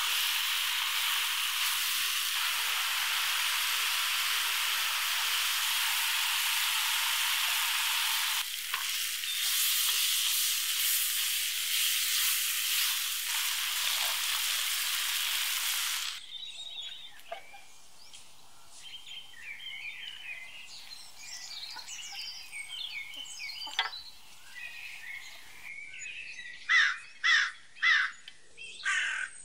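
Chicken, potato and corn filling sizzling loudly in a hot wok as it is stirred, for about the first sixteen seconds; then the sizzle cuts off abruptly, leaving quiet outdoor sound with small birds chirping, and near the end a bird calls loudly four times in quick succession.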